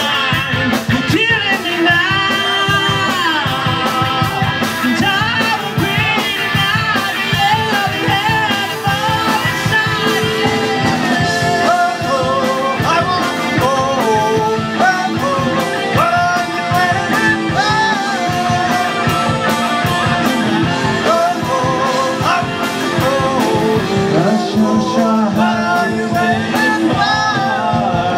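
Live rock band playing a cover song: electric guitars, bass and drum kit, with a voice singing over them.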